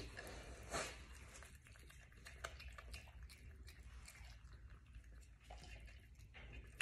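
Faint, irregular wet smacking and small clicks of a Virginia opossum chewing soft food off a plate, with one sharper click about a second in.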